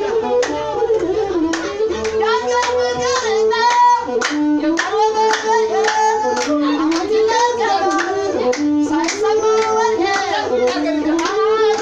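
Ethiopian azmari song: a voice singing over a masinko, the one-string bowed fiddle, with steady hand clapping keeping the beat.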